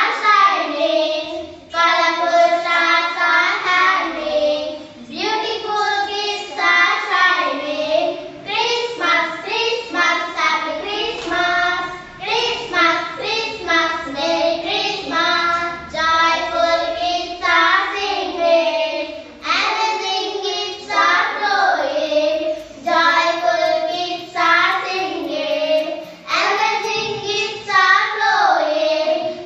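Young schoolgirls singing a song together, in short phrases of a second or two with brief breaks between them.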